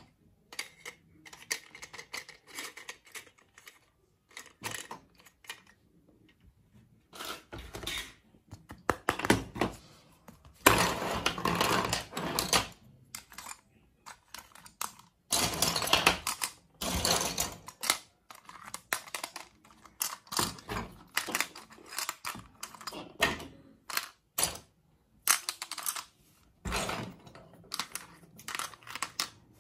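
Hard plastic toy food skewers and pieces clicking and clattering against a plastic tray and against each other as they are handled, in irregular bursts of sharp clicks with a few longer stretches of rattling.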